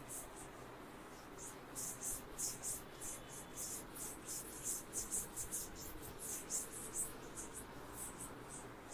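Writing by hand: a faint run of short scratchy strokes, a few a second, as a problem is written out.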